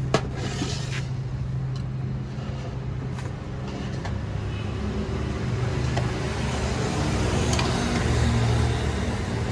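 Road traffic: a steady low engine hum from passing and idling vehicles, with a sharp click just after the start.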